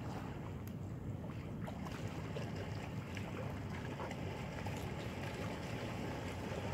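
Steady low rumble of wind on the microphone, with water lapping against shoreline rocks and a few faint clicks.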